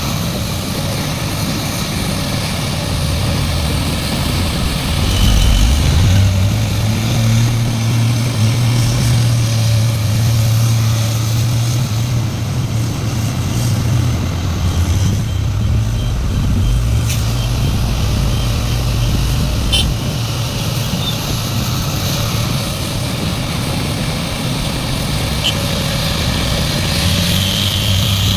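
A large hydraulic excavator's diesel engine working under load. Its note rises about five seconds in, holds, and eases back down around twenty seconds in.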